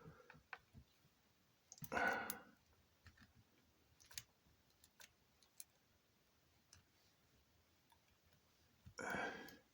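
Lock pick and tension tool working inside a cheap pin-tumbler lock: faint, scattered metal clicks and ticks as the pins are probed. Two louder, half-second rasping noises come about two seconds in and again near the end.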